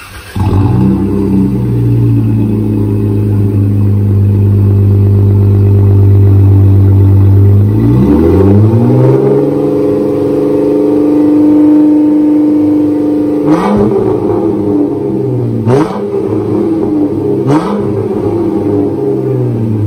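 Exhaust of a 2018 Jeep Wrangler JK's 3.6-litre V6, running through a Black Widow Venom 300 muffler with the rear muffler deleted. It starts about half a second in and idles steadily, then rises to a steady 2,000 rpm hold about eight seconds in, and is revved sharply three times in the last six seconds. The tone is deep and raspy, like a truck.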